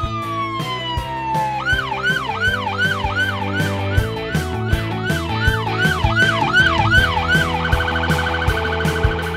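Police car siren over background music with a steady beat: one long falling tone, then a quick repeating yelp about two and a half times a second, switching near the end to a fast warble.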